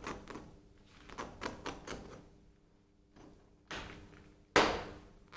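Hands rubbing and smoothing a wet plaster splint over a leg: scattered soft rubbing and patting, with two louder rubbing strokes near the end, the second the loudest. A faint steady hum lies under it.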